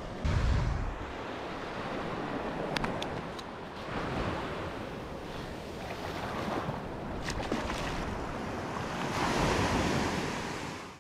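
Ocean surf breaking and washing on a beach, swelling and easing several times, with wind buffeting the microphone, loudest in a low gust about half a second in. A few faint clicks sound over it.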